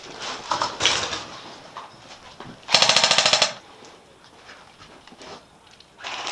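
Airsoft electric guns firing on full auto: two short bursts, a fast mechanical rattle of roughly twenty shots a second, about three seconds in and again near the end, with a few softer knocks earlier.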